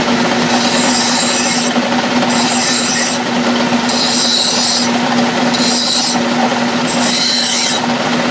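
A hand file scraping against the edge of a cast backing plate turning in a lathe, breaking its corners: five strokes, about one every second and a half. The running lathe hums steadily underneath.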